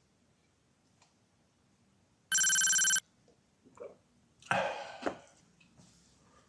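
A short electronic ringing tone, loud and flat, lasting about two-thirds of a second and cutting off abruptly, about two seconds later followed by a brief, quieter noisy sound.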